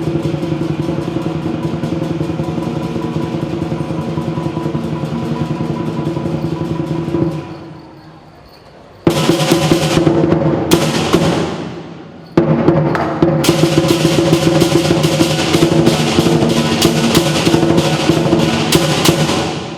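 Lion dance percussion: a large Chinese drum in a fast continuous roll that breaks off twice and starts again, with cymbals clashing in quick repeated strokes after each restart.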